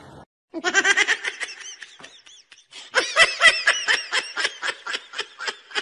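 A person laughing in two bouts of quick, rapidly repeated pulses, the second starting about three seconds in and louder.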